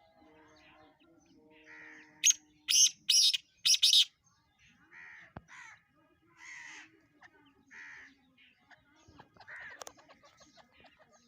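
Black francolin calling: a loud burst of four harsh, rasping notes a little over two seconds in, with fainter calls repeating every second or so after it.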